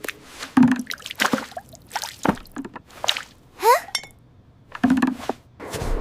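Cartoon sound effects: a string of sharp clicks and hits with two soft thuds, and a quick rising whistle-like glide about three and a half seconds in, followed by a brief pause.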